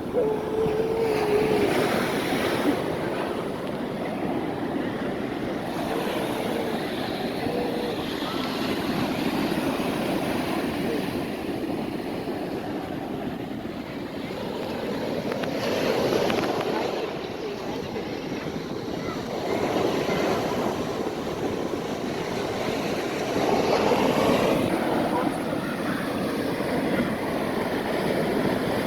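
Ocean surf washing up the beach, its rush swelling a few times as waves come in, with wind buffeting the microphone.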